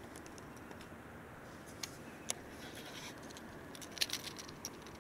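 Sharp clicks and light scratching from handling a fishing rod, reel and line: a couple of single clicks about two seconds in, and a quick cluster just after four seconds as the line and lure are grabbed by hand.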